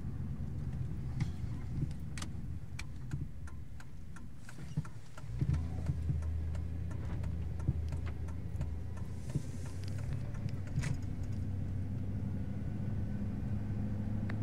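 Car engine and road hum heard from inside the cabin while driving, with scattered light clicks and taps. The engine note becomes stronger and steadier about five seconds in.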